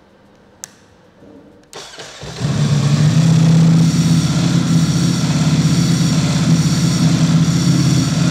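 Ducati Streetfighter V4 SP's 1,103 cc V4 started on the starter after a click, catching about two seconds in and then idling steadily and loud on its stock exhaust. Its dry clutch rattles with a fast 'cak-cak-cak' that sounds like a broken engine but is normal for this bike.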